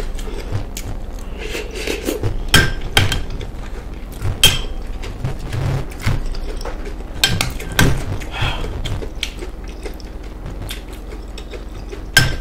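Close-miked eating sounds: a plastic spoon clinking and scraping in a glass bowl of stew, with chewing and wet mouth sounds, in sharp irregular clicks and clacks.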